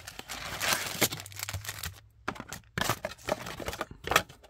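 Cardboard trading-card box being opened and handled: rustling and scraping as the inner cardboard sleeve slides against the outer box, then a brief pause and a few sharp crinkles and taps.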